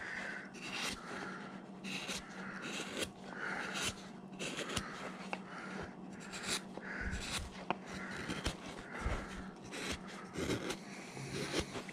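Hand carving gouge slicing and scraping through a block of wood in a series of short cuts, about one a second.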